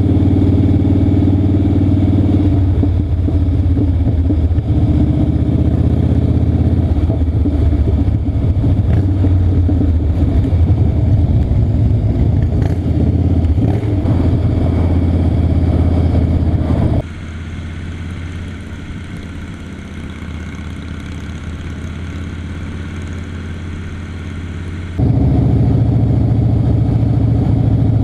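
Cruiser motorcycle's V-twin engine running steadily under way. About 17 seconds in the sound drops abruptly to a quieter engine note for about eight seconds, then jumps back to the full, louder running sound.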